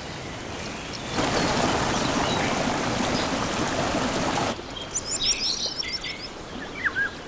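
Stream water rushing and splashing over rocks, loud from about a second in until it drops away sharply at about four and a half seconds. Birds chirp with short rising notes over a softer flow of water in the latter part.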